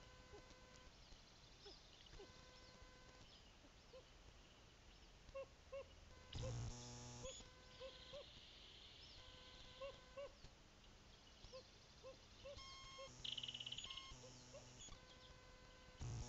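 Faint marsh background with scattered small bird chirps, broken by short bursts of electrical buzzing from the camera: one about six seconds in, a longer one with a pulsing buzz past the middle, and another at the very end.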